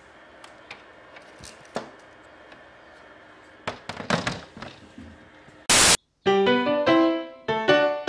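A few faint clicks, then a short cluster of knocks and clatter from a plastic egg incubator being handled about four seconds in. Just before six seconds comes a loud, brief burst of noise, and piano music starts right after it.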